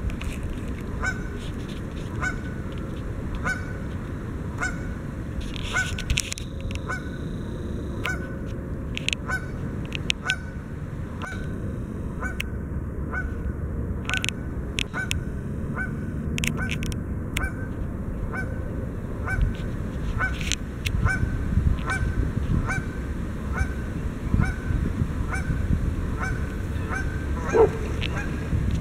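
Canada goose honking over and over, short honks at about one and a half a second, over a low rumble. Near the end, splashing as the goose runs flapping across the water with the swimming dog behind it.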